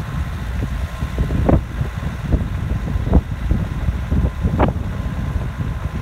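Vehicle driving on a rough gravel road, heard from the open side window: a steady low rumble of tyres and engine, with wind buffeting the microphone and irregular thumps and jolts from the bumpy surface.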